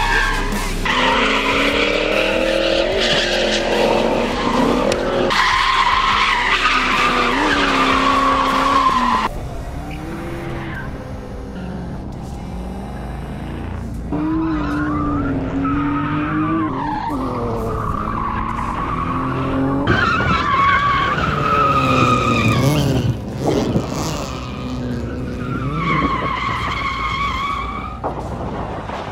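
Drift cars sliding through a course: engines revving up and down sharply as the drivers work the throttle, over the hiss and squeal of spinning tyres. The sound changes abruptly about a third of the way in and again about two thirds in.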